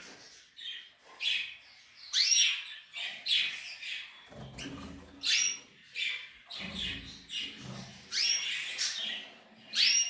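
Caged finches, goldfinch and canary, chirping: short, high, rising calls repeated about once a second.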